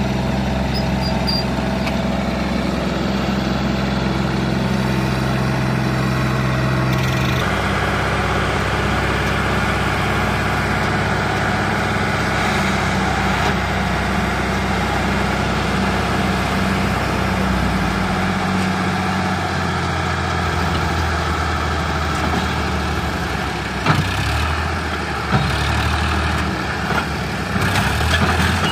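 Tractor diesel engine running steadily while the hydraulic jack raises the tipping trolley to dump its load. A few sharp knocks come near the end.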